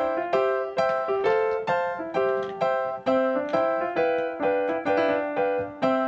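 Background music: a keyboard melody of evenly spaced notes, about two a second.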